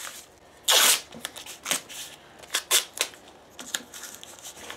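Hand-work sounds at a guitar workbench: one short rasp of masking tape pulled off the roll about a second in, then scattered light taps and rustles as the protective sheet is pressed down and the slack strings are handled.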